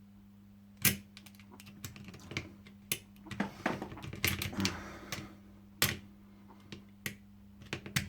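Metal lock-picking tools clicking and scraping inside a 5-lever mortice lock as the levers are worked up through a drilled hole, with sharp irregular clicks, the loudest a little under a second in and again near six seconds, and a run of scraping clatter in the middle.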